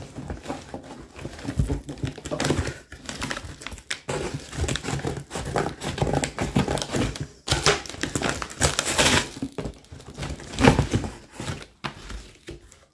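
Cardboard box flaps and paper packing being torn open and crumpled by hand, an irregular run of rustling, crinkling and ripping, with the loudest burst near the end.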